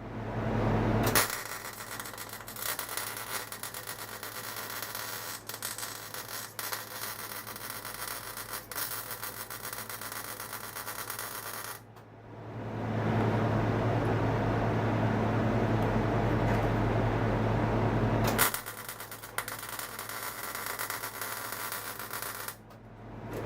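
Electric arc welding on a transaxle's third and fourth gears, laying weld into slots cut in them to lock the gears together. A crackling arc with many sharp ticks alternates with louder stretches of steady hum, about a second in and again from about twelve to eighteen seconds, with brief stops between runs.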